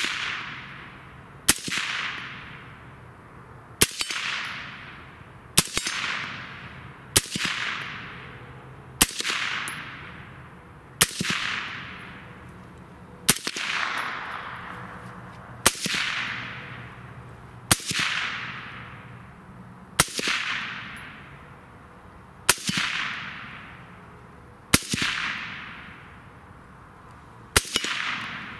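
Suppressed shots from a Texas Black Rifle Company M4 rifle with a Griffin Armament Recce 5 suppressor, fired one at a time about every two seconds, about thirteen in all. Each crack is followed by a tail that fades over a second or so.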